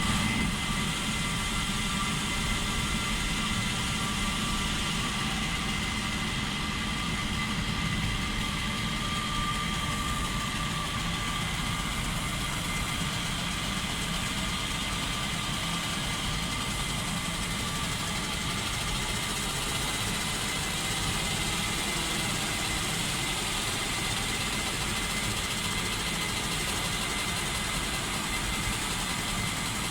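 Galvo laser engraving machine running steadily while etching a mirror: a continuous machine hum with a thin, steady high whine.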